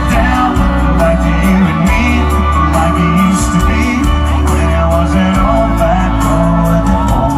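Background music: a pop-rock song with singing and a steady beat.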